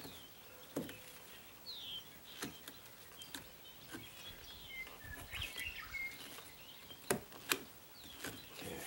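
A few scattered light taps and clicks from chisel work on a wooden door jamb, the sharpest two close together near the end, with birds chirping faintly in the background.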